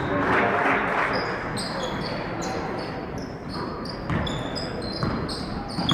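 Live basketball play on a gym court: a ball bouncing and many short, high squeaks, typical of sneakers on the court floor, over a background of voices.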